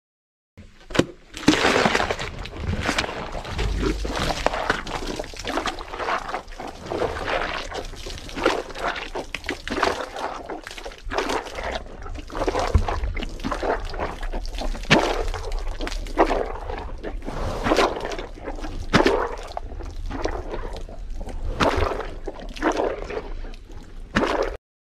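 Water splashing and sloshing over a hippo's head close to the microphone, in a dense run of irregular short splashes.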